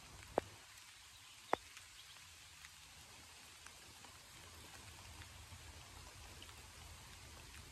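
Two sharp clicks about a second apart near the start, over a faint steady background, as electric-fence wire is worked into a metal clamp on a T-post.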